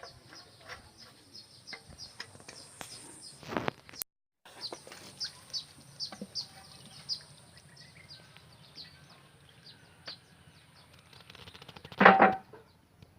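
Small birds chirping in quick repeated short notes, over a faint steady high tone. Two louder sudden sounds come about three and a half and twelve seconds in.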